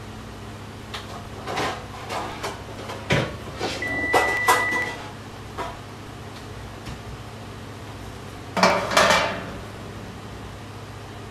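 Spoon scraping and tapping as cupcake batter is portioned into a muffin tin: a series of short knocks and scrapes, loudest around four seconds in and again near nine seconds, over a steady low hum. A short high tone sounds briefly about four seconds in.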